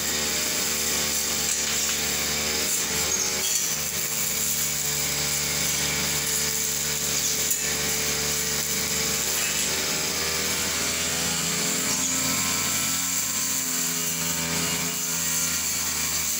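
Old backpack brush cutter's two-stroke engine running steadily under load as it cuts long grass, its pitch dipping and rising a little near the end. The machine is old and has just been repaired.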